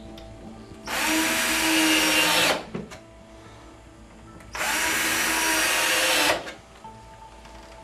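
Cordless drill driving screws through a plastic corner bracket into the cabinet side: two runs of nearly two seconds each, the motor spinning up to a steady whine and then stopping.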